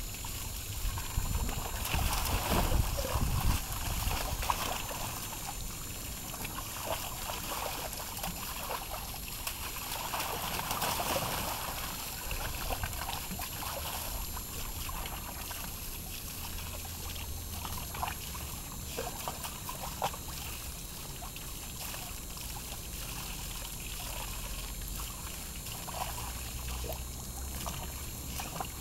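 Garden hose stream splashing into a plastic wading pool of water while a dog bites at the spray and splashes in it, with louder spells of splashing now and then.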